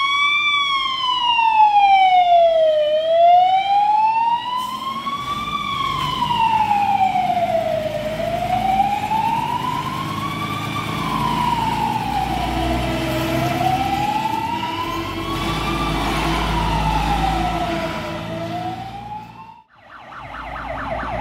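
Fire engine siren in a slow wail, rising and falling about once every five seconds, over the rumble of a truck engine. Just before the end it cuts off abruptly and a faster, rapidly warbling siren takes over.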